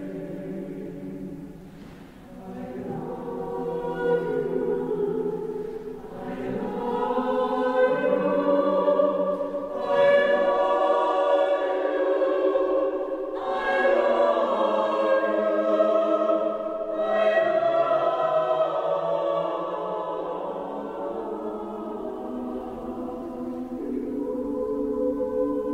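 Mixed chamber choir singing sustained chords in phrases that swell and fade, loudest through the middle and softer near the end.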